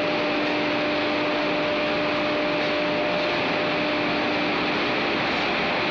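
Industrial rotary dryer running: a steady mechanical rushing noise from the turning drum and its drive, with a constant hum underneath.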